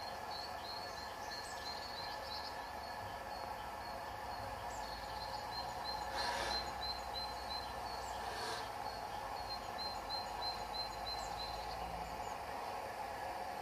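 Distant LMS Fowler 4F steam locomotive pulling away slowly, heard as a steady background hiss and low rumble with a few slow, spaced bursts of exhaust steam, the loudest about six and eight seconds in. Over it a small bird sings runs of quick, repeated high notes.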